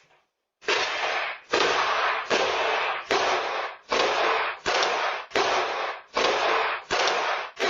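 Repeated kicks against a front door, picked up by a doorbell camera's microphone: a run of about nine heavy bangs, roughly one every three-quarters of a second, each a sudden crash that trails off briefly.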